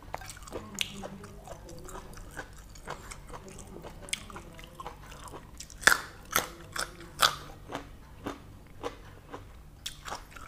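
A person chewing and biting boiled pork intestines and raw vegetables, with wet chewing and small clicks throughout. A cluster of louder, crisp crunches comes about six seconds in as a raw green vegetable is bitten.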